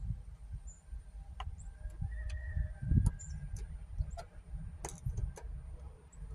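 Scattered light clicks and taps of a flathead screwdriver and small hardware being worked by hand, about a dozen, over a steady low rumble.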